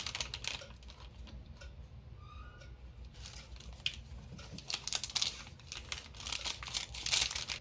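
Candy wrappers crinkling and crackling as candies are unwrapped close up, in short irregular spells of crackle, loudest near the end.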